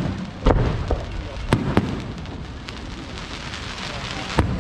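Aerial fireworks shells bursting overhead: a sharp bang about half a second in, two more close together around a second and a half in, and another near the end, with a steady noisy hiss between them.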